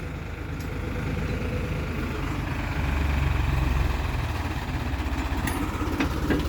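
JCB 3DX backhoe loader's diesel engine running steadily, getting louder for about a second around the middle.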